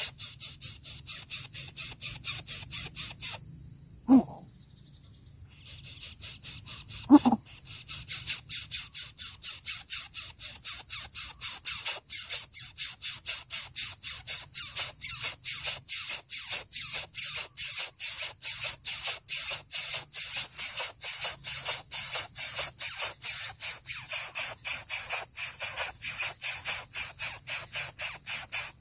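Coucal chick giving a fast, regular series of hissing, rasping calls, about four a second. It breaks off for a couple of seconds about three seconds in, where two short low calls falling in pitch are heard.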